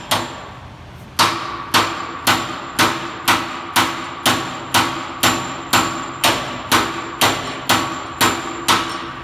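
Hammer striking the steel cap of a Milwaukee steel-cap screwdriver: a blow right at the start, then a steady run of metal-on-metal clangs about two a second from about a second in, each with a short ring.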